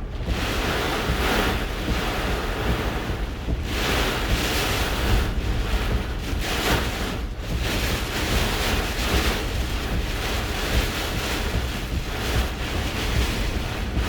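Hurricane eyewall wind gusting, a loud rushing that swells and eases every second or two, with a heavy low rumble of wind on the microphone.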